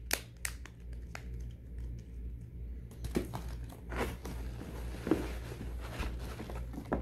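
Hands rummaging in a cardboard mailing box full of loose phones: scattered clicks and knocks of plastic handsets and some crinkling of packaging, over a steady low hum.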